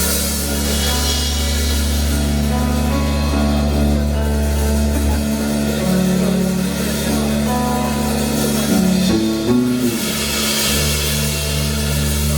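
Live rock band playing an instrumental passage: guitar over drums and cymbals, with a low bass that drops out about five seconds in and comes back near the end.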